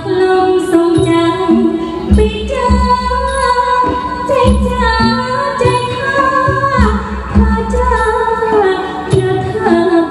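Thai likay leading lady singing a sustained, gliding melody in a clear voice through a microphone, over amplified band accompaniment with a low drum beat.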